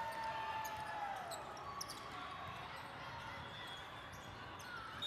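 Indoor volleyball rally: sharp knocks of the ball being played on hands and arms, among long high squeals, over the steady noise of a large, echoing sports hall.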